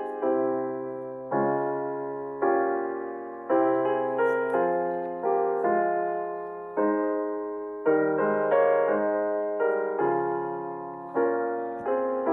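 Slow, gentle piano music: sustained chords struck about once a second and left to ring out.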